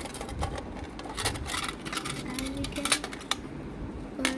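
Toy packaging being handled: an irregular run of small clicks and rustles.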